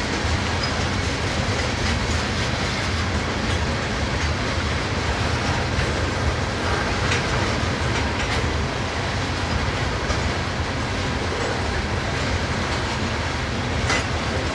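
Freight cars (tank cars and covered hoppers) of a mixed freight train rolling past: a steady rumble of steel wheels on the rails, with a few sharp clicks, the clearest near the end.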